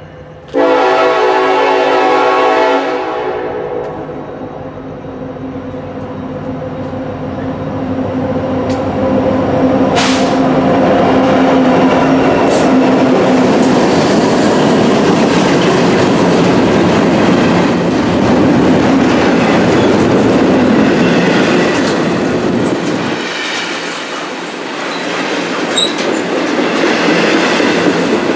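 A freight train's horn sounds one loud blast about half a second in, lasting about two seconds. The two EMD diesel locomotives, a Union Pacific SD70ACe and SD60M, then rumble past close by. After about 23 seconds the engine rumble drops away, and the autorack cars follow with the clickety-clack of wheels over the rail joints.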